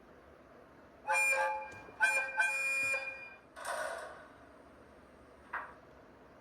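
Sound-decoder horn of a model EF64 electric locomotive, played through the model's small speaker: a short blast about a second in, then a longer steady blast, followed by a brief burst of air hiss.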